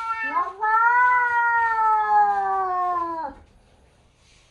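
Domestic cat yowling: a short call at the start, then one long drawn-out yowl of about three seconds that sinks slowly in pitch and breaks off. It is a hostile caterwaul between two cats meeting for the first time, face to face through crate bars.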